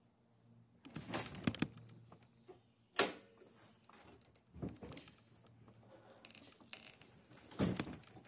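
Hand-working noises on a dirt bike: rattling and knocking of parts being handled, with one sharp click about three seconds in that is the loudest sound, and a few more short knocks later on.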